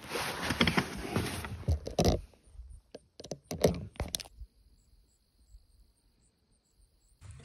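A rolled tarp in its fabric bag rustling and sliding over carpet as it is handled and pushed into a storage space, with a few knocks. The sound stops about four seconds in, leaving near silence.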